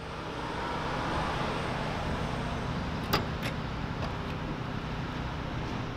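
Steady traffic noise with a low hum, fading in at the start, with a couple of sharp clicks about three seconds in.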